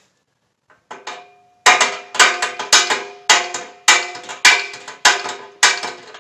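Hammer beating on the steel tubing of a metal hay ring: a couple of lighter hits about a second in, then steady ringing clangs about two a second.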